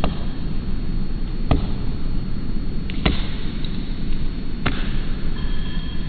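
Pileated woodpecker striking wood with its bill while excavating, slowed to one-fifth speed: four separate knocks about one and a half seconds apart over a steady low rumble.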